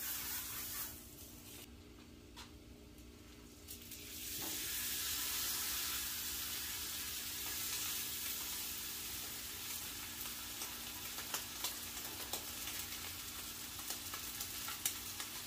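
Ribeye steak searing in melted butter on a hot Blackstone flat-top griddle, sizzling steadily. The sizzle dips briefly early on, swells about four seconds in as the steak goes down, and is broken by a few light clicks later.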